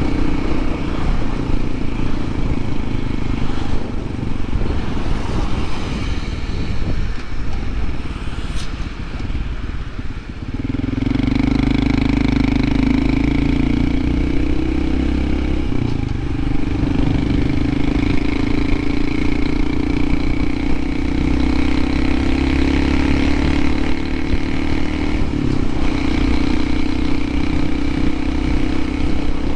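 Honda CT125 Hunter Cub's air-cooled single-cylinder four-stroke engine running under way, with a rush of wind noise. About ten seconds in the engine note dips briefly, then settles into a steady, louder drone.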